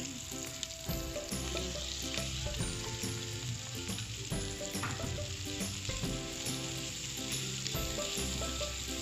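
Flaked milkfish with onion, garlic and chili sizzling in a frying pan, stirred and turned with a wooden spatula: a steady frying hiss.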